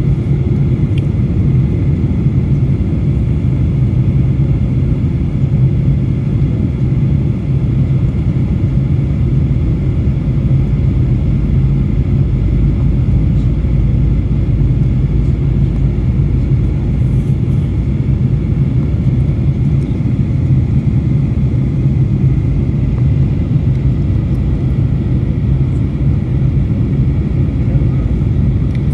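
Steady low drone of a Boeing 737-800/900's CFM56 engines and airflow, heard from inside the passenger cabin during the approach descent.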